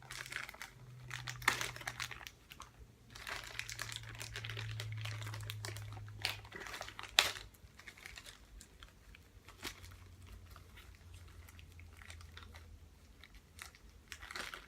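Plastic packaging crinkling and rustling in the hands, with sharp clicks and snaps, as small plastic compartments are worked open; a faint low hum sits underneath.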